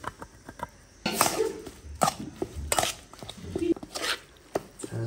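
Metal spoon scraping and clinking against a metal mixing bowl as chopped gundruk, onion and tomato sauce are stirred together: light clicks at first, then sharp strokes about once a second.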